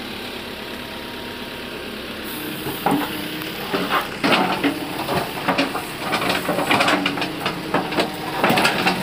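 Excavator engine running steadily while its bucket scrapes soil and tears out dry brush, with crackling and snapping of twigs and roots from about three seconds in.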